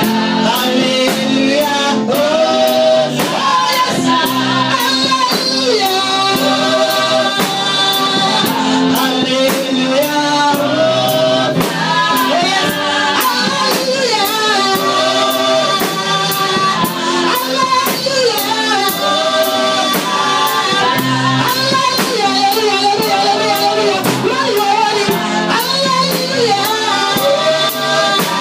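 Gospel praise singing with a live band: voices carry a melody over a steady drum beat.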